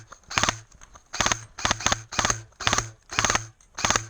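Airsoft rifle firing a run of short full-auto bursts, about two a second, each a quick rattle of shots.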